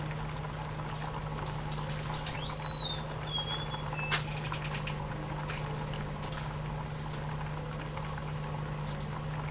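Beef curry and rice simmering in pots on the stovetop over a steady low hum. Two short squeaky tones, the first rising, come about two and a half seconds in, then a click at about four seconds.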